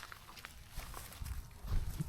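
Dogs and puppies moving over dry leaf cover: scattered rustling and crackling footsteps, with a louder low thud about three-quarters of the way through.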